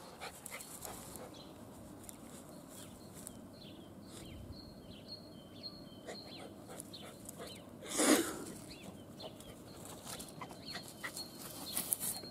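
A small Kokoni dog panting, with one short, loud bark about eight seconds in; small birds chirp in the background.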